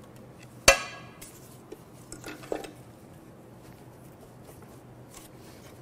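A sharp metallic clank with a short ring just under a second in, then a few lighter clinks and knocks: a steel pry bar and the cast-aluminium timing cover of a Toyota 2GR-FE V6 as the cover is worked off the engine by hand.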